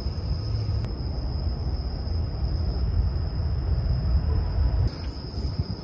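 Outdoor ambience: a steady low rumbling noise with a thin, steady high-pitched insect drone over it.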